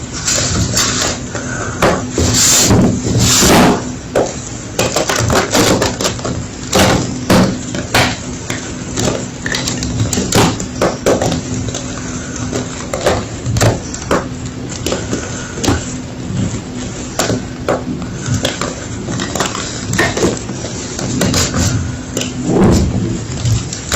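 Homemade gym chalk being crunched: a dense, irregular run of crisp crunches and cracks, some much louder than the rest, over a faint steady hum.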